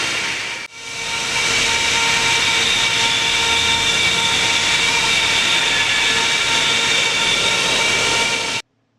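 Makino A88 motorized machining spindle running at high speed, a steady whine of several high tones over a rush of air. It drops out briefly near the start and stops abruptly near the end.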